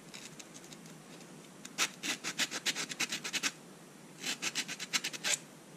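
Sandpaper on a sanding block rubbed in quick short strokes against a small plastic push pin, knocking its sharp corners down to a rounder profile. The scratching comes in two runs of rapid strokes, the first just under two seconds in and the second about four seconds in.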